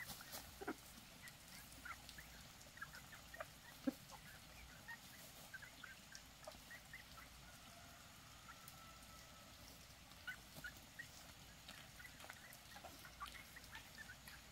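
Faint, scattered short calls of domestic fowl, with a few soft clicks and taps; the loudest is a single tap about four seconds in.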